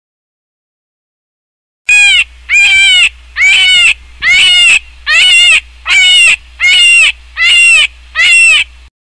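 An animal calling: after about two seconds of silence, a run of short, loud, pitched cries, about one every two-thirds of a second, stopping just before the end.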